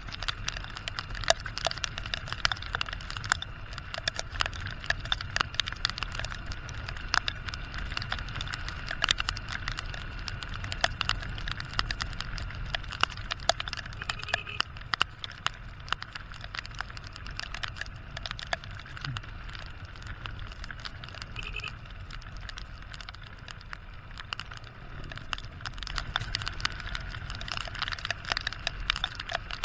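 Raindrops tapping on the camera housing in a rapid, irregular patter of sharp ticks. Underneath is a steady low rumble from the moving motorcycle and wind.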